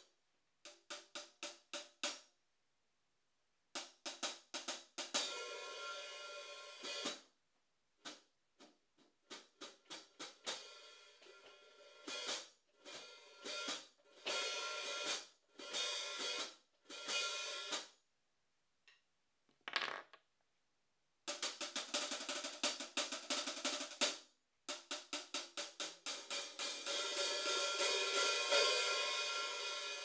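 Sabian AAX Stage Hats 14-inch hi-hats struck with a wooden drumstick, played in phrases of quick strokes with short pauses between them. Some phrases ring on as a sustained wash, the longest near the end.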